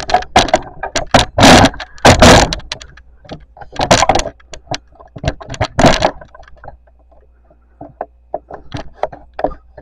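Knocks, bumps and clatters of handling at a wooden kitchen cupboard holding steel pots and pans. The loudest come about one and a half and two seconds in, and after about six seconds only light clicks remain.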